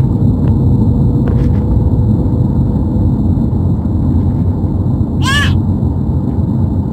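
Steady low rumble of a car driving, heard from inside the cabin. About five seconds in there is a single short, high-pitched call.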